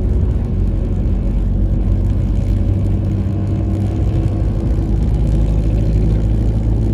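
Steady engine and road noise inside a moving car's cabin, a low even rumble.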